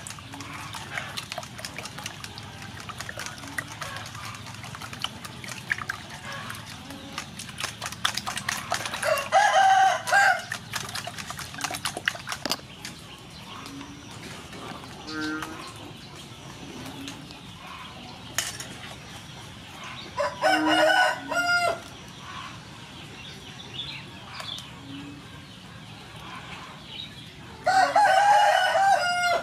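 A rooster crows three times, each crow about a second and a half long and the loudest sound: about a third of the way in, two-thirds in, and near the end. Before the first crow, a wire whisk ticks rapidly against a metal bowl as eggs are beaten.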